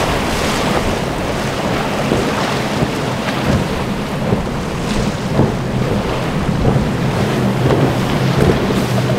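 A Nor-Tech powerboat's four Mercury 450R outboards running at speed, a steady low drone that comes up about halfway through. Heavy wind noise on the microphone and the hiss of spray and choppy water are louder than the engines.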